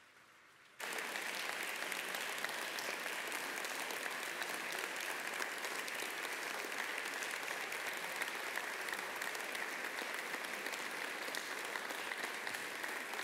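A congregation applauding. Many hands clap together, starting suddenly about a second in and holding steady.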